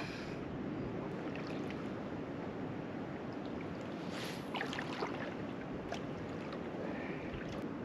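Steady outdoor noise of river water with light wind, and a few faint ticks between about four and six seconds in.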